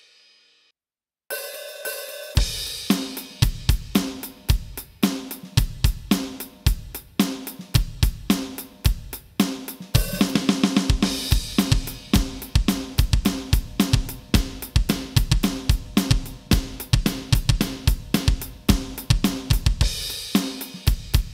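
Electronic drum kit playing a double-time groove: steady cymbal/hi-hat eighth notes, kick drum and snare backbeats on the off-beats. The groove starts a little over a second in, after the last hit before it dies away into a brief silence.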